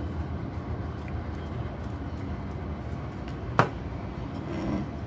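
Steady low background hum with a single sharp knock about three and a half seconds in.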